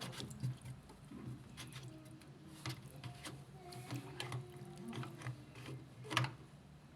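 Irregular light clicks and knocks of small hard parts being handled, with a sharper knock about six seconds in, over a steady low hum.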